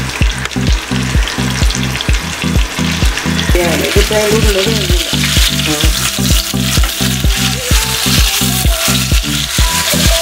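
Masala-coated chicken breast shallow-frying in hot oil in a pan, sizzling and crackling, louder from about three seconds in as the piece is lifted and turned. Background music with a steady beat plays under it.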